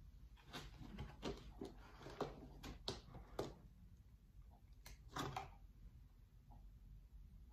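Faint, scattered taps and rustles of an opened shoe box and its packaging being handled, clustered in the first three and a half seconds and again a little after five seconds.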